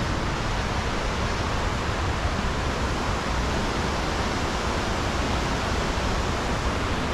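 Steady rushing of a nearby waterfall, an even noise with no breaks and no change in level.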